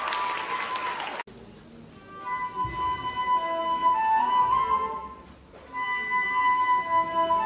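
Crowd cheering and clapping that cuts off abruptly about a second in; then a flute and a violin start a slow duet melody of long held notes.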